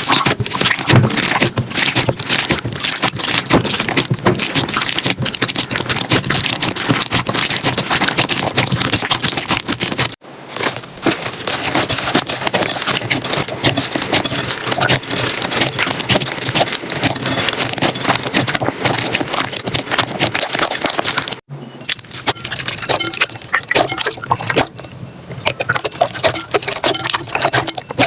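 Slime being squeezed, pressed and stretched by hand, giving dense crackling, popping and squelching clicks. The sound breaks off abruptly twice, about a third and three quarters of the way through.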